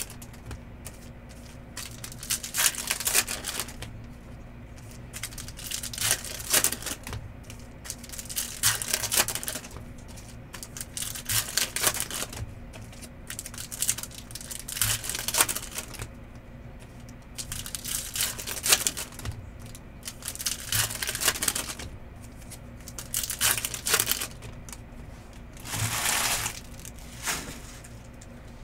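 Foil trading-card pack wrappers crinkling and tearing while cards are handled, in repeated short bursts a couple of seconds apart, over a faint steady low hum.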